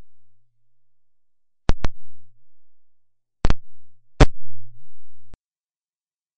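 Pops and crackles from a plug being worked in the computer's audio jack, with a low electrical hum between them: two pops about 1.7 s in, two more about 3.5 s in, and a loud one about 4.2 s in. It all cuts off abruptly about five seconds in as the device is unplugged.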